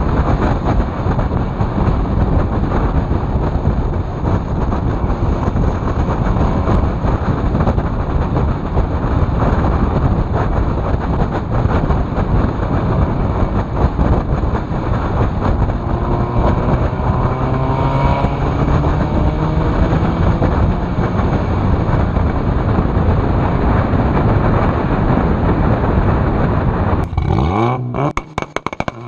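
Turbocharged VW Jetta 1.8T four-cylinder engine pulling under way, drowned in heavy wind and road rumble, its note climbing audibly in the middle stretch. Near the end there is a short run of sharp cracks.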